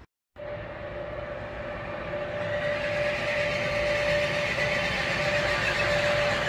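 A Trenitalia locomotive approaching along the track, its sound growing steadily louder, with a steady hum over the rising running noise.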